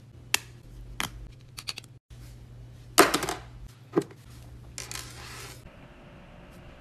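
Light plastic clicks and taps from a thin card-sized folding phone stand being handled and a phone set on it. The loudest cluster of clicks comes about three seconds in, with another sharp click a second later.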